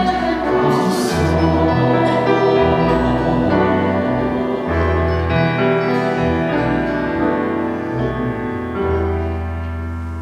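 Church choir singing the closing line of a hymn with grand piano accompaniment, the piano carrying on as the music gradually gets quieter toward the end.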